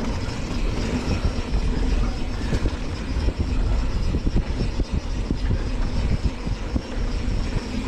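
Wind rushing over the microphone as a mountain bike rolls fast down a dry, dusty dirt trail, with the tyres running on the dirt and the bike knocking and rattling over bumps.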